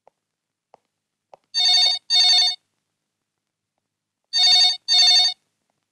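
Novelty vintage-car-shaped telephone ringing in a double-ring pattern, two rings in quick succession, twice.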